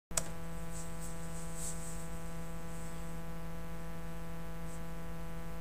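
Steady electrical buzzing hum, one unchanging set of tones, that switches on with a click just after the start.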